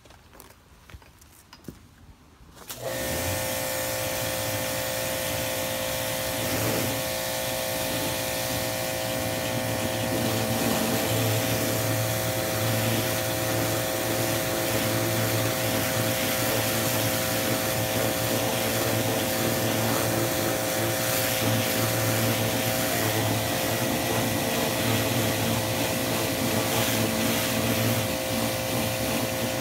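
A 2000 PSI, 1.2 GPM electric pressure washer starts up suddenly about three seconds in and runs with a steady hum and a hiss from its jet spraying the wooden fence boards. A few faint handling clicks come before it starts.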